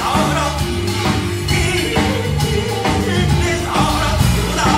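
Live Korean gugak-fusion band: a male singer sings a wavering melody into a microphone over piano, upright bass and drums.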